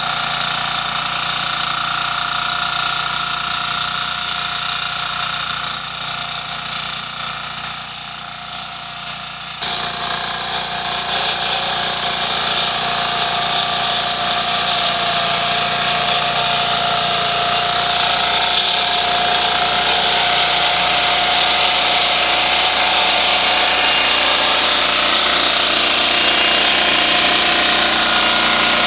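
Walk-behind two-wheel tractor with a front rotary mower deck running steadily under load while mowing tall weeds and grass. About ten seconds in the sound changes abruptly and becomes louder and brighter.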